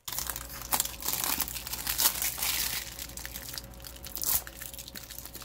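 Clear plastic wrapping being peeled and crinkled off a hard zippered case, an irregular crackling with a few louder crackles along the way.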